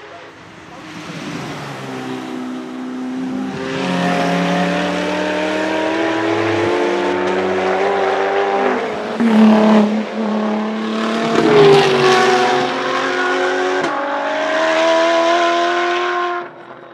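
A supercar's engine accelerating hard, its pitch rising steadily through each gear, with a drop in pitch at each upshift twice along the way. It stops abruptly near the end.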